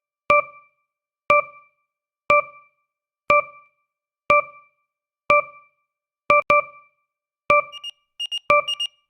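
A countdown timer's tick sound: a short, sharp, keyboard-like tone that dies away quickly, struck once a second, with a quick double strike about six seconds in. Near the end a faster, higher-pitched beeping alarm pattern joins in as the countdown reaches its last seconds.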